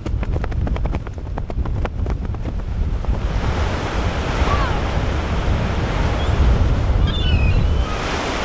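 A fabric flag flapping and snapping rapidly in strong wind, with wind buffeting the microphone. About three seconds in, the snapping gives way to the steady wash of surf breaking on a beach.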